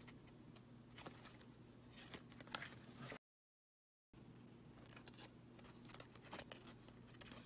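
Faint rustle and light ticks of a stack of hockey trading cards being flipped through by hand, broken by a moment of dead silence a little after three seconds in.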